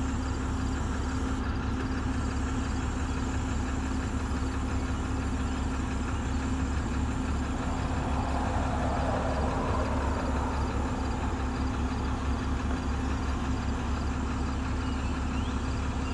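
Bucket truck's engine idling steadily with a low hum while the hydraulic boom lowers the bucket. It gets slightly louder for a few seconds about halfway through.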